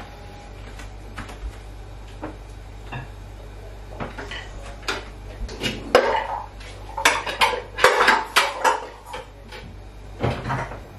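Glass and ceramic mixing bowls clinking and knocking against each other and the countertop: a run of sharp clinks starting about four seconds in, thickest in the middle and ending shortly before the end.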